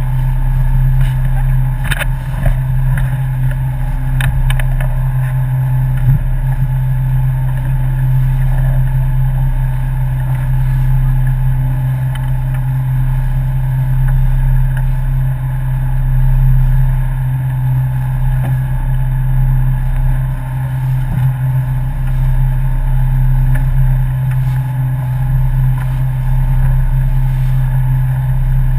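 Boat engine running at a steady speed, a constant low hum with a few light clicks about two and four seconds in.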